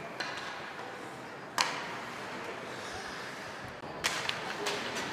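Ice hockey rink sounds: one loud, sharp clack of a hockey stick or puck about a second and a half in, then two quicker clacks near the end as sticks meet at a faceoff, over a steady rink hum.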